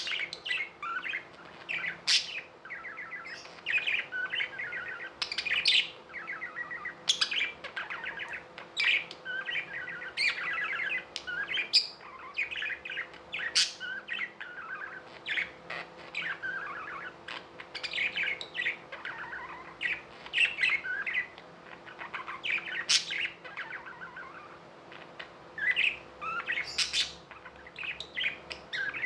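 Budgerigars chirping and warbling without pause, a busy chatter of many short, quick calls overlapping one another.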